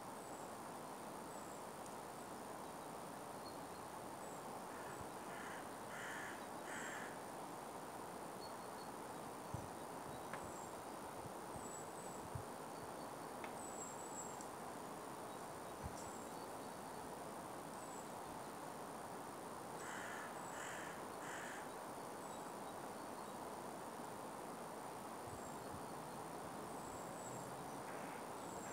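Steady outdoor hiss with a crow cawing in two short series of three or four calls, about five seconds in and again about twenty seconds in. Faint high chirps repeat throughout, and a few soft clicks sound in the middle.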